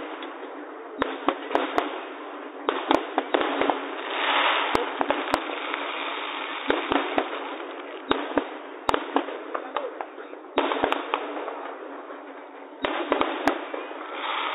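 Aerial firework shells bursting with many separate sharp bangs, irregularly spaced, over a steady background rumble of the display.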